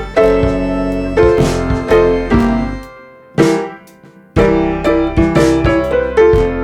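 Background music led by a piano with a light beat; it fades out briefly about three seconds in and comes back about a second later.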